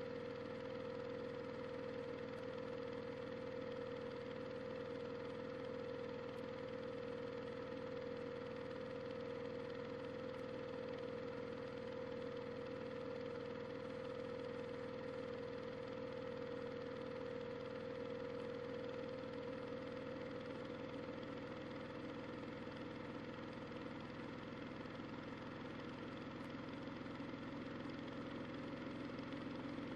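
Washing machine running: a steady motor hum with a clear whine, its pitch creeping slightly upward in the last third.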